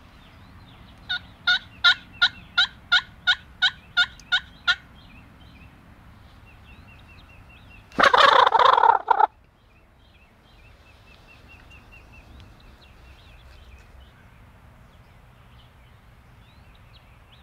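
A wild turkey gobbler gobbles once, loudly, for about a second, about eight seconds in. Before it comes a string of about eleven turkey yelps, evenly spaced at roughly three a second.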